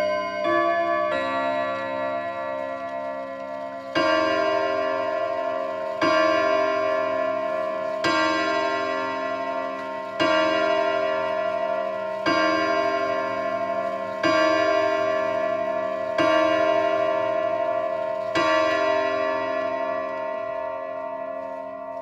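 French ODO 54/8 antique chiming wall clock with eight hammers on a 101 gong-rod set, finishing its chime tune about a second in and then striking the hour. Eight single gong strikes come about two seconds apart, each ringing on and fading before the next.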